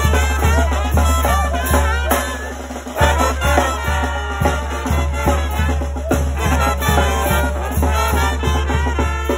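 Live brass band playing a lively dance tune: trumpets over a steady bass-drum beat. The beat drops out about two seconds in and the band strikes up again loudly a second later.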